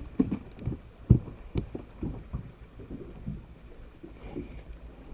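Irregular low thumps and knocks on a fishing boat, the loudest a little over a second in.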